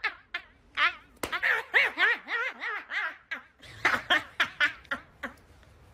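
A young woman laughing in a run of short, high, rising-and-falling bursts that die away near the end.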